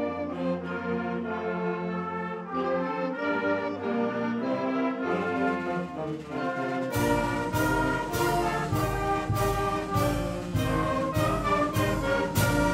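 School concert band of brass, saxophones and flutes playing a slow, sustained chordal passage. About seven seconds in, percussion joins with strong strokes about twice a second under the held chords.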